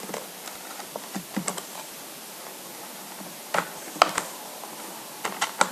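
Light, scattered clicks and taps of plastic coloured pens being handled and slotted into their packaging, in loose clusters with a quicker run of clicks near the end.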